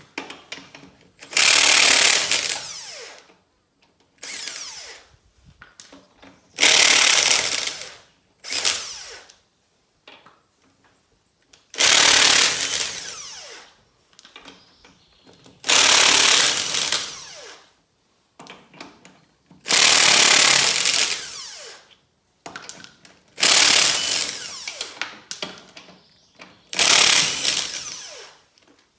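Impact wrench loosening wheel lug nuts to take a tire off: about nine harsh hammering bursts of one to two seconds each, every three or four seconds, each one winding down as the trigger is let go.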